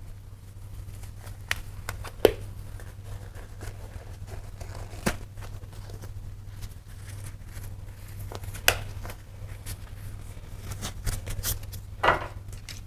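Scattered clicks and knocks of hands and tools working under a motorcycle, with a plastic tub set down beneath it to catch the coolant. A steady low hum runs underneath, and the sharpest knocks come about two and nine seconds in.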